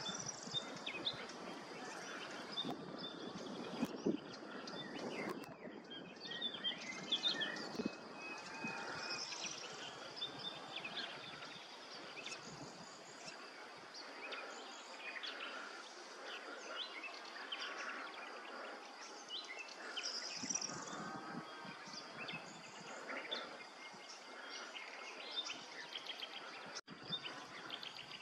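Outdoor countryside ambience: scattered small-bird chirps over a steady, thin high-pitched buzz.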